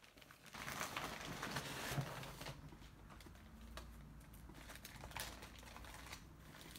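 Soft rustling and crinkling of tissue paper and plastic packaging being handled, with scattered small clicks and taps. It is busiest in the first couple of seconds and quieter after.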